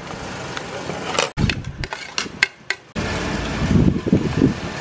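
Cutlery clinking and tapping against plates and bowls at a dinner table, with a few sharp clinks in the middle, over a steady room hum that changes abruptly twice.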